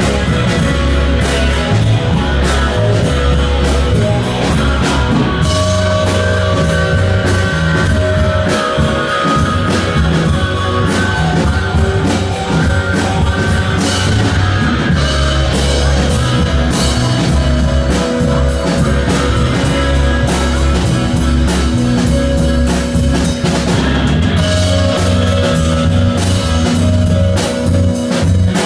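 Live rock band playing loud in a small room: drum kit, electric guitar and keyboard, with a strong bass and steady drumbeat.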